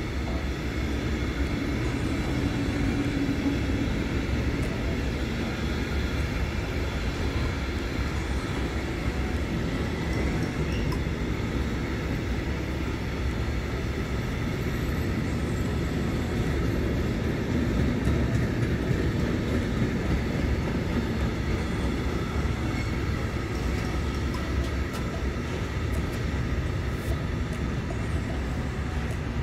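Wagons of a long intermodal freight train, loaded with containers and semi-trailers, rolling past close by: a steady rumble of wheels on rail with no break.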